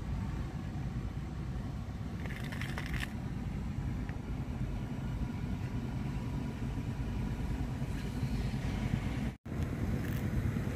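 Steady low outdoor rumble, with a brief hiss about two and a half seconds in. The sound drops out for an instant near the end.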